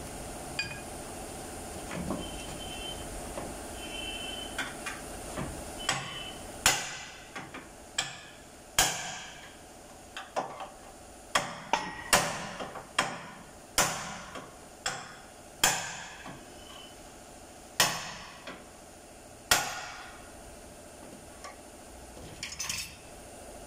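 A hammer striking the steel of a car's crushed front-end structure during collision repair: a run of about twenty sharp, ringing metal blows at an irregular pace, most of them between about six and twenty seconds in.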